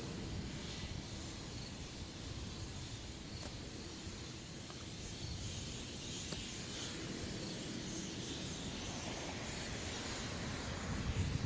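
Steady outdoor background noise: an even hiss with a low, uneven rumble and a few faint clicks.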